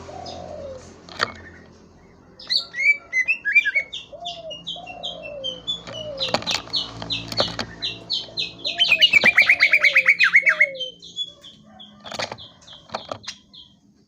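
Cucak ijo (green leafbird) singing: fast runs of high chirps, with a rapid trill of falling notes near the middle. Lower arching whistled notes repeat underneath, and there are a few sharp clicks.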